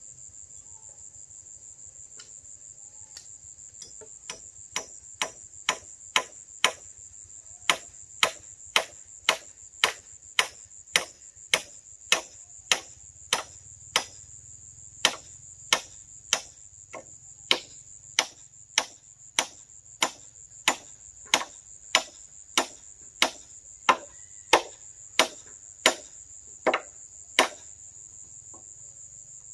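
Sharp knocks of a hand tool striking, about two a second, starting as faint taps, soon growing loud, with a few short pauses, and stopping shortly before the end. Crickets chirr steadily and high-pitched throughout.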